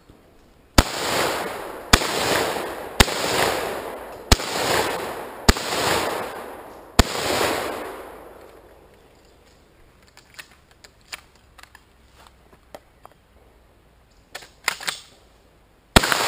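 Six gunshots from a long gun, about one to one and a half seconds apart, each trailing off in a long echo. Then several seconds of light clicks and knocks, and a single pistol shot near the end.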